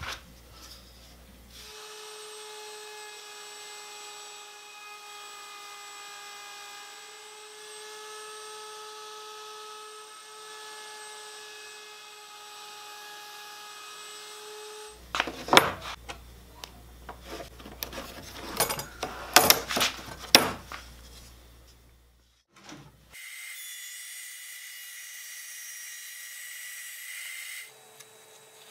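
Workshop sounds in three parts. First an electric power tool's motor runs steadily for a long stretch. Then a block scrapes and sands a maple fretboard by hand in loud, uneven strokes with knocks. Then a higher-pitched motor whine runs for a few seconds.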